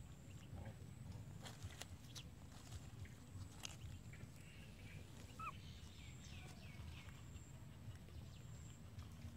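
Faint outdoor ambience: a low steady rumble with scattered light clicks and taps, and a few brief, faint high squeaks about halfway through.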